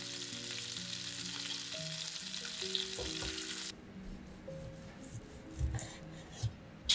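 Chicken breast sizzling as it fries in oil in a pan, a steady hiss that cuts off abruptly about three and a half seconds in. Then a knife slicing the cooked chicken on a wooden board: a few soft thuds and a sharp knock near the end.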